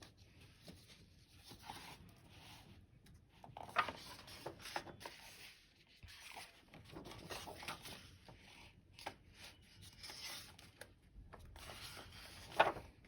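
Paper pages of a picture book being handled and turned: soft rustling and rubbing with a few sharp taps, the loudest one near the end.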